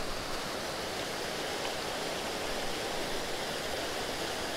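Small stream rushing over a shallow, rippling riffle: a steady, even rush of water.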